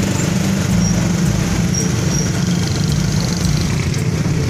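Vehicle engines running with a steady low rumble, mixed with wind noise on the microphone.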